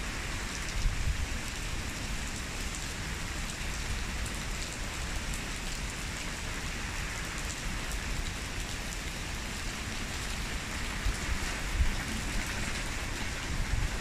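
Steady rain falling on garden shrubs and a gravel drive: an even, dense patter of drops.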